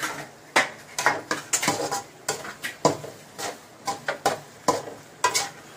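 Metal spatula scraping and knocking against a metal kadai as cooked egg masala is stirred, in quick, irregular strokes, about three a second.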